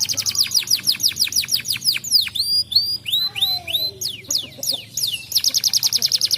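Domestic canary singing: a fast series of falling whistled notes that switches to slower swooping notes in the middle, then to a rapid even trill near the end.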